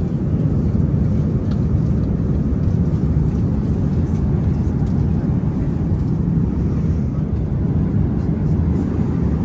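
Steady low rumble of an Airbus A380 in flight, engine and airflow noise heard from inside the economy cabin.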